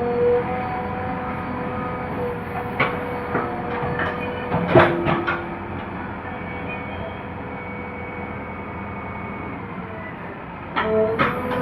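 JCB 3DX backhoe loader running steadily with a held whine, broken by several sharp metal clanks, the loudest about five seconds in.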